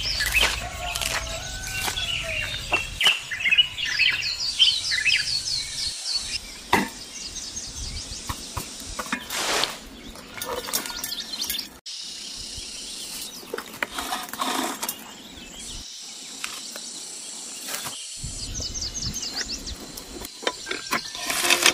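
Small birds chirping in short repeated phrases, over scattered knocks, clicks and scrapes from a bonsai being lifted out of its plastic pot and soil being raked loose from the roots with a chopstick.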